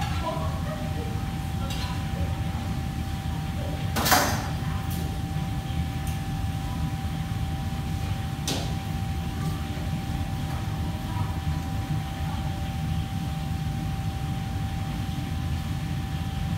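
Steady low hum of a commercial kitchen with a thin constant whine over it, broken by one sharp clatter about four seconds in and a lighter knock about eight and a half seconds in.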